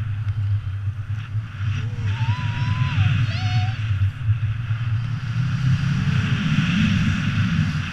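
Airflow from a tandem paraglider in flight buffeting the camera's microphone: a loud, steady wind rumble with a hiss above it, heavier in the second half. A few faint short whistling tones come through it about two to three seconds in.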